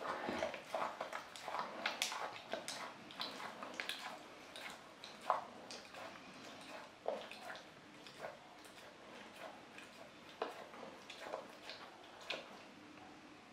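Belgian Malinois mouthing and chewing a small rubber ball: irregular wet clicks and smacks from its jaws, busier in the first half and sparser and fainter later.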